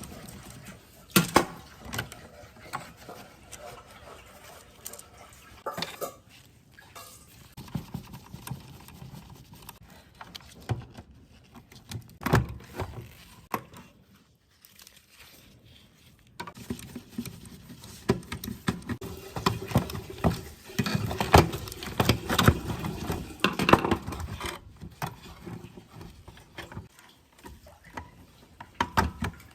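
Workbench handling noises: scattered clicks and knocks of parts and tools being handled, with a short quiet spell past the middle and then a busier run of clattering.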